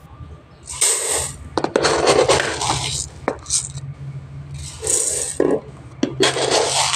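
Uncooked rice being scooped from a plastic container with a plastic cup and poured: the grains rattle and hiss in about four pours, each up to a second long.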